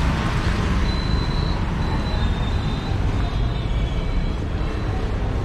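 Street traffic noise, steady and dense: auto-rickshaw engines and other vehicles running close by. Faint high tones come through briefly about a second in and again a couple of seconds later.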